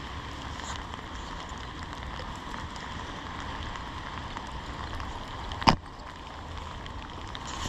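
Steady hiss of rain falling, with one sharp knock about five and a half seconds in.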